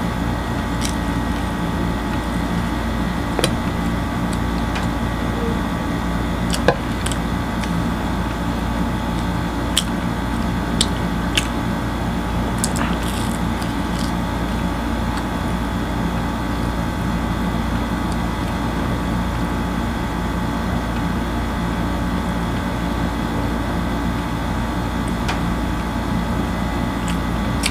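A steady mechanical hum runs throughout, with a few short sharp clicks and crackles from chewing and handling crusty flatbread. The loudest click comes about seven seconds in.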